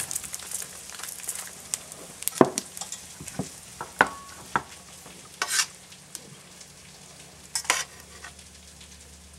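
Linguine being tossed with metal tongs in a stainless steel sauté pan over a gentle sizzle, with several sharp clinks of the tongs against the pan.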